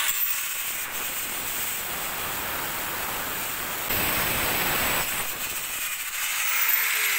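Small handheld angle grinder running with a cut-off disc, biting into a thin metal tube with a steady hissing grind. The grind gets louder for about a second around four seconds in.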